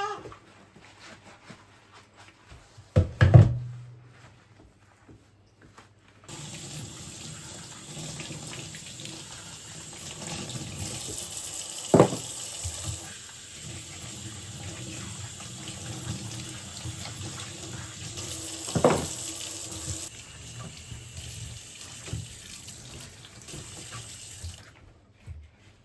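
Water tap running into a sink, turned on about six seconds in and off near the end, with a sharp knock a few seconds before it starts and two more knocks while it runs.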